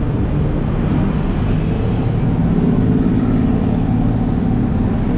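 Low, steady rumble of motor vehicle engines in street traffic, swelling a little midway.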